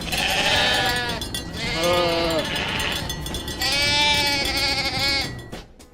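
Goat bleating three times, each call long and wavering.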